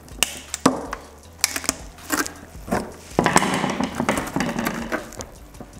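Oven-warmed headlight seal and plastic lens crackling, clicking and popping as the lens of a 2005–2011 Toyota Tacoma headlight is pulled off its housing by hand. Sharp cracks come in a scattered run, with a longer crackling tear about three seconds in.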